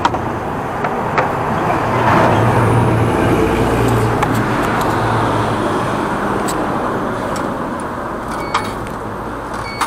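Road traffic: a motor vehicle passing, building to its loudest about two to three seconds in and slowly fading, with a few light clicks over it.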